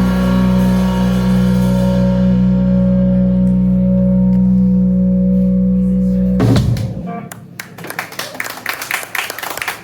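A live rock band's final chord rings out on guitar and bass, with a cymbal fading away, then is cut off abruptly about six and a half seconds in. Scattered clapping follows.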